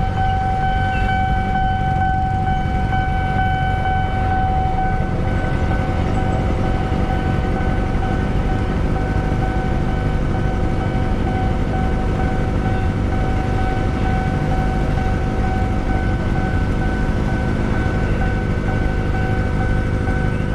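Kawasaki ZX25R's 250 cc inline-four through a Villan full-system exhaust, held at steady high revs while cruising, giving a constant high-pitched drone over rumble and wind noise.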